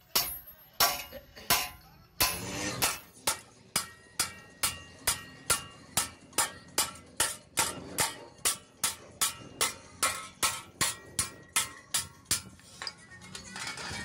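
Hand hammer striking a steel phawra (hand plough) blade on an anvil, each blow ringing sharply. A few spaced blows give way to a quicker, steady run of about three a second, which stops near the end.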